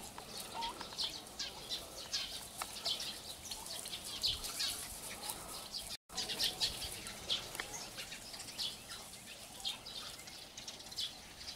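Turkey poults peeping: many short, high chirps from a flock of chicks, with a brief dropout about six seconds in.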